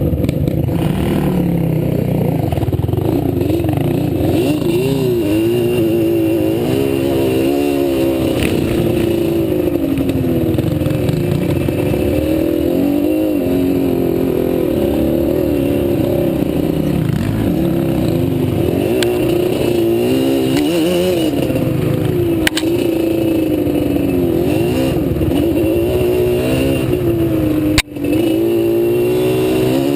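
ATV engine running under load on a trail ride, its pitch rising and falling continuously as the rider works the throttle up and down.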